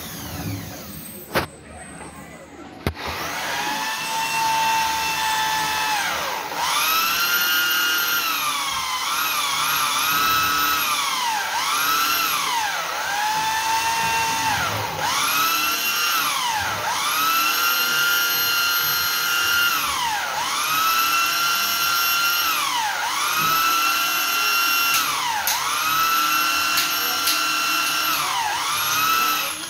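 A handheld electric power tool's motor, drill-like, whining in repeated bursts of a couple of seconds, each spinning up to a steady high pitch and winding down as the trigger is let go. A few sharp clicks come before the first burst.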